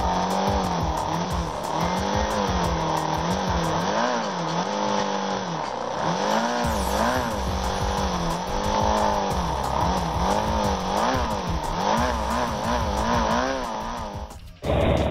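Motorcycle engine revving up and down over and over, rising and falling about once a second as the bike is ridden along a rough dirt track. The sound cuts off abruptly near the end.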